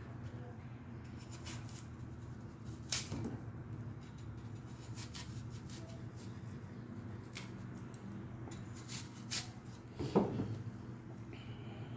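Quiet kitchen handling sounds during food preparation: a few light knocks and rustles, one about three seconds in and a louder knock just after ten seconds, over a low steady hum.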